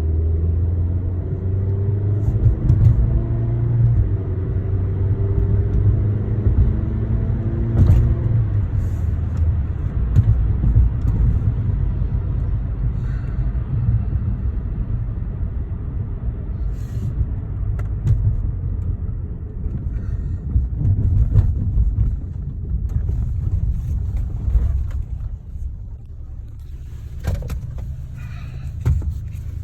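Cabin sound of a 2013 Chevrolet Sonic on the road: a steady low engine and road rumble, with the engine's pitch climbing in steps under acceleration in the first several seconds. A few sharp knocks or clicks come through, and the rumble eases off near the end as the car slows.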